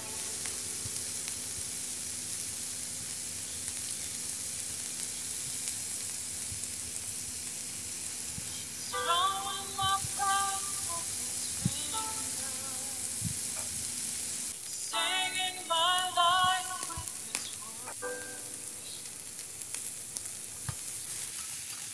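Beef cubes sizzling on a ridged grill pan: a steady frying hiss. Twice, a voice briefly sounds over it.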